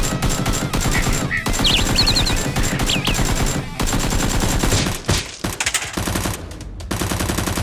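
Rapid automatic gunfire, dense bursts that later break into shorter volleys with brief gaps between them.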